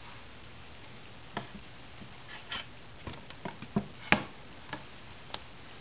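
Scattered light clicks and taps of metal plates being handled and lifted off the threaded rods of an HHO dry cell stack, the sharpest tap about four seconds in.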